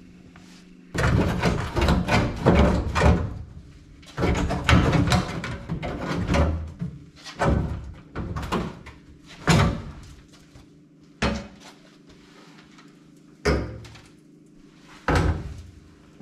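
Loose sheet-metal front fender of a Mercedes being lifted off and handled. A run of metal knocks and clatters for the first several seconds gives way to single knocks every second or two.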